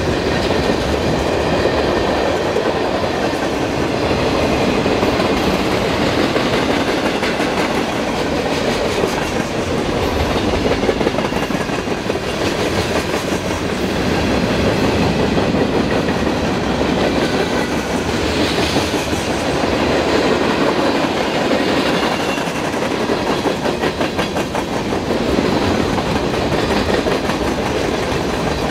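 Mixed freight train of tank cars, covered hoppers and boxcars rolling past close by, a steady loud rolling noise with a continuous clatter of wheels on the rails.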